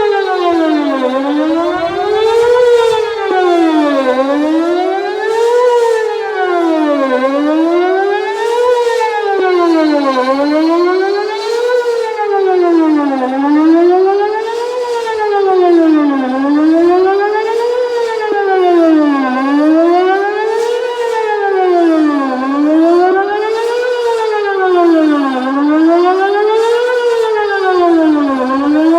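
Whelen WPS 2810 electronic outdoor warning siren sounding its monthly test, loud, in a wail that sweeps smoothly up and down, one rise and fall about every three seconds.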